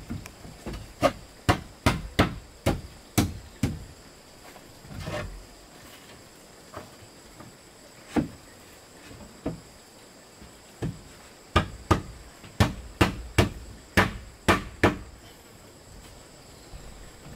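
A hand tool striking wood in repeated sharp blows, a quick run of about two to three a second near the start, a few single blows, then another quick run. A faint steady high-pitched hum runs underneath.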